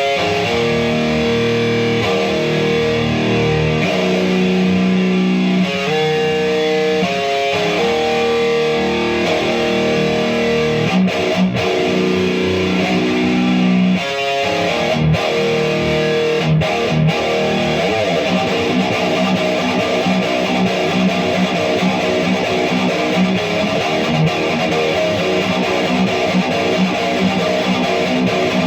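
Seven-string electric guitar with Fishman Fluence Modern pickups, played through an ENGL Savage 120 Mk II tube head and two ENGL 4x12 cabinets with Celestion Vintage 60 speakers, playing high-gain distorted metal riffs. For about the first half it rings out long held chords broken by a few sudden stops, then it moves into fast, choppy chugging riffs.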